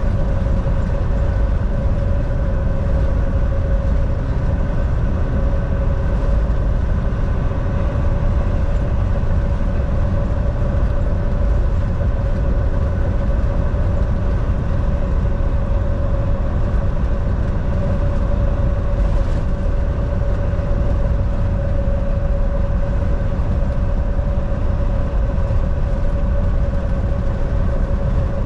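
Volvo semi-truck driving at a steady speed: an even, loud low rumble of engine and road noise with a constant hum over it, unchanging throughout.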